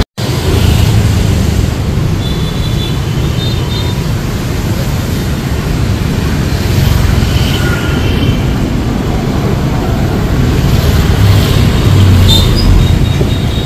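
Motor scooters passing amid steady city traffic noise, with a heavy low rumble.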